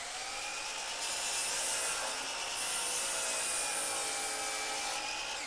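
DeWalt sliding miter saw running at full speed and cutting through a wooden board, a steady motor whine under the rasp of the blade as it is pushed back through the wood. Right at the end the trigger is released and the motor pitch starts falling as the blade winds down.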